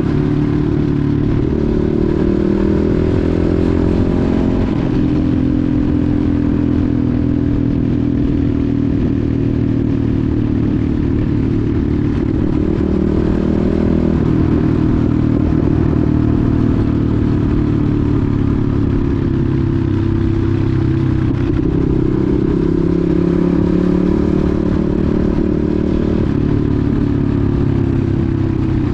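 Enduro motorcycle engine running under load while riding, its note rising and falling again and again as the throttle is worked, with some rattling along the way.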